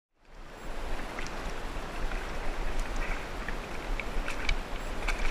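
Shallow creek water running over a riffle, a steady rush that fades in at the start, with a few faint ticks over it.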